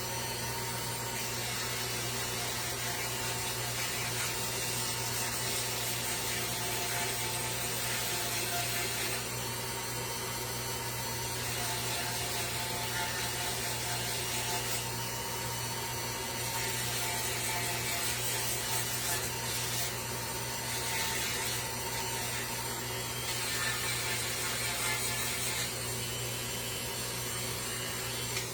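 Wood being shaped with tools on a wooden sign, an even scraping noise with small ripples over a steady hum.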